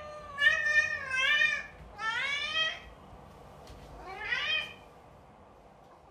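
A cat meowing, about four drawn-out meows, the later two rising in pitch.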